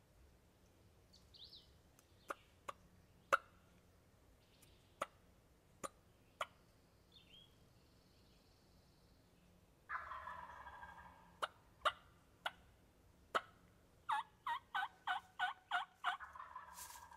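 A wild turkey gobbler gobbling about ten seconds in, a loud rattling call lasting over a second. Near the end comes a fast run of about nine short turkey notes, and sharp single clicks are scattered through the first half.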